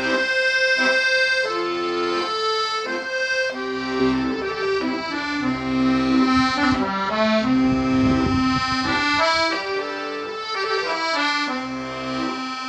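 Accordion playing a slow melody of held notes, as background music.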